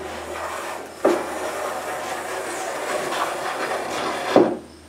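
Hand plane cutting a 45-degree chamfer along the edge of a white oak tabletop: a short stroke, then a long stroke starting about a second in and running some three seconds, ending in a short knock near the end.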